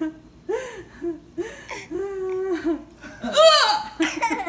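Young child laughing in short high calls that rise and fall in pitch, the loudest about three and a half seconds in, mixed with a held adult voice and laughter.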